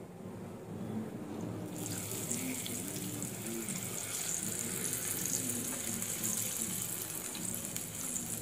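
Batter-coated green chillies deep-frying in hot oil in a kadai: a steady sizzle that starts sharply about two seconds in.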